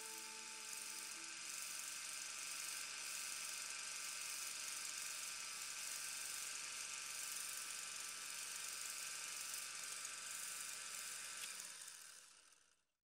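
Faint, steady mechanical whir and hiss with a low hum, fading out about twelve seconds in; the last notes of music die away in the first second.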